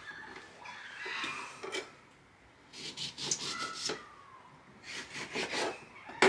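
Kitchen knife slicing lemons in half on a wooden worktop: two short bouts of rasping cuts through the peel and flesh, then a sharp knock on the wood near the end.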